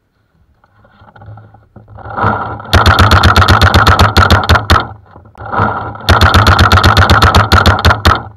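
Paintball marker firing in two rapid bursts of about two seconds each, around ten shots a second, each burst led in by a rising noise.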